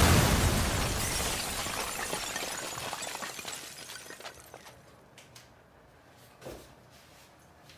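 Glass shattering: a sudden loud crash that cuts the music off, then a long rush of noise fading out over about five seconds, with a few small clinks near the end.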